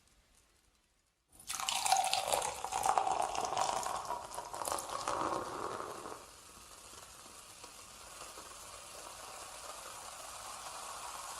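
Liquid poured into a glass. It starts suddenly about a second in as a loud splashing pour, then drops after about six seconds to a quieter steady stream whose pitch slowly rises as the glass fills.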